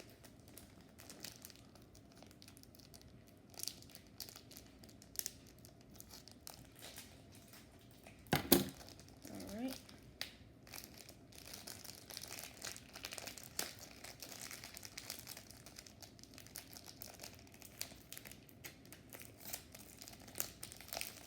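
Plastic packaging crinkling and tearing as it is cut and pulled open, with scattered small crackles and clicks and one sharp, loud knock about eight seconds in.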